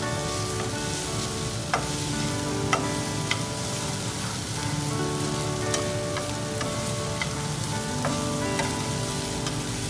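Bitter melon and egg sizzling in a frying pan as they are stir-fried with wooden chopsticks, with a few sharp clicks of the chopsticks against the pan. Soft background music plays underneath.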